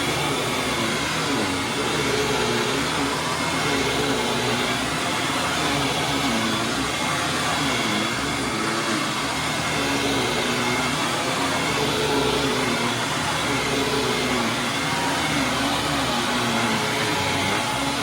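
Hoover WindTunnel Supreme upright vacuum cleaner running over carpet, its motor tone wavering up and down every second or two.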